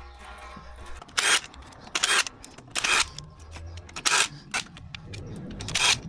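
About five short bursts from a power tool, spaced a second or so apart, working the bolts of the Porsche 0B5 gearbox oil pan.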